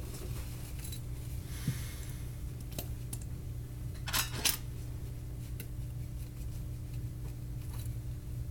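Small clicks and taps of tools and parts being handled during an iPhone 6 screen repair, the sharpest two close together about four and a half seconds in, over a steady low hum.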